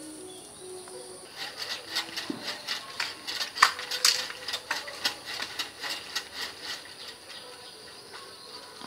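Tamarind twigs and leafy branches rustling and snapping as they are handled and pushed aside in the tree: a busy run of crackles and sharp clicks from about a second in, the loudest snaps near the middle. A dove coos briefly at the start, and a faint high insect buzz runs underneath.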